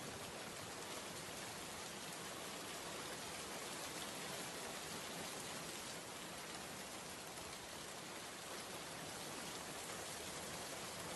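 Heavy rain falling steadily, the drops splashing on the ground in an even hiss.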